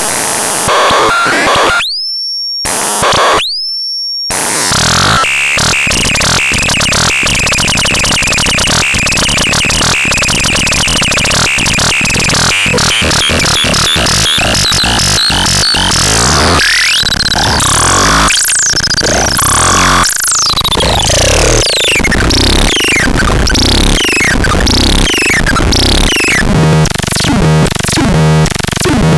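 Loud, chaotic electronic noise from the VOLDAX synthesizer. Two short rising tones with gaps open it, then a dense stuttering, glitchy noise. Later, falling pitch sweeps repeat about once a second.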